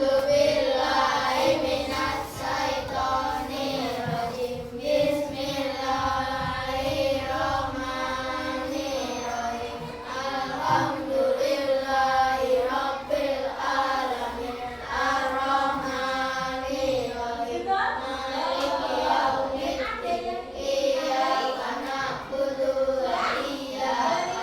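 A group of children singing together in unison, in phrases of about a second each, over a steady held tone.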